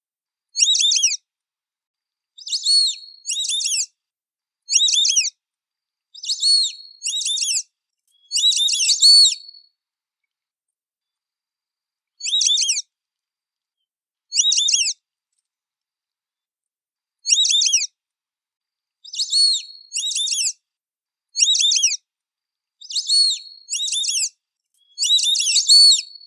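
White-faced whistling duck (irerê) calling: short, high whistled calls of a few quick notes, coming singly or in pairs, with silent pauses between them.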